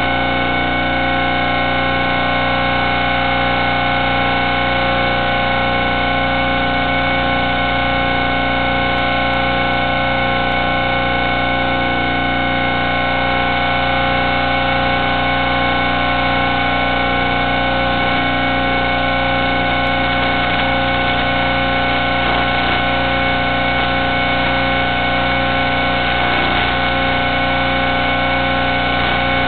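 Steady electronic buzz of fixed tones, unchanged in pitch or level throughout, carried in the audio of an analog FPV drone video feed, rather than the motors, which would rise and fall with throttle.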